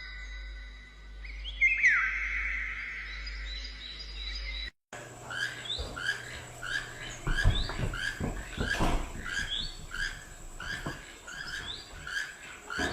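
Bird calls. Steady whistled tones and falling glides, then after a sudden break a short chirping note repeated about twice a second, with a few low thumps in the middle.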